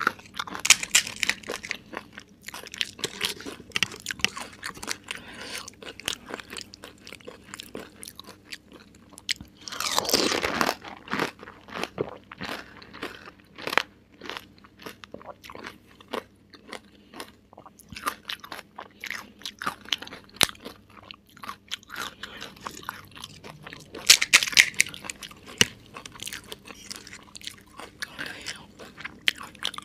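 Close-miked crunching and chewing of pani puri: crisp fried puri shells cracking between the teeth with wet chewing, in a dense run of small crackles, with louder bites about ten seconds in and again near twenty-four seconds.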